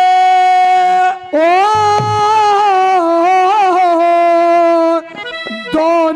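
Haryanvi saang folk music: a long held melody note, then a rising, wavering melody line, with a brief drop in loudness near the end.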